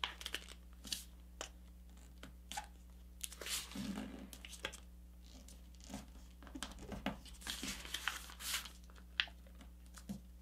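A sheet of printer paper being folded by hand: faint, irregular rustling and crinkling as fingers press and run along the creases.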